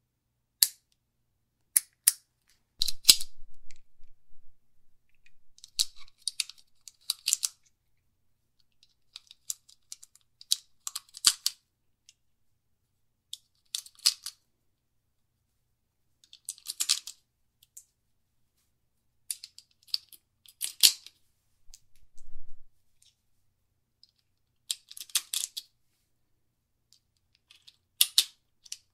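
Smith & Wesson Model 39 9 mm semi-automatic pistol being handled: short bursts of sharp clicks and rattles every couple of seconds, with silences between.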